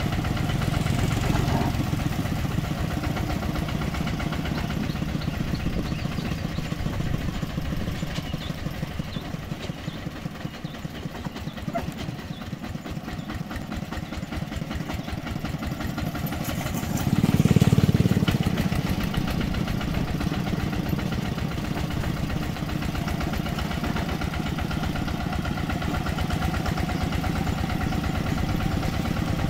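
Single-cylinder diesel engine of a two-wheel walking tractor running steadily at road speed, with a fast, even chugging beat. About two-thirds of the way through, a passing motorcycle swells louder for a couple of seconds and fades.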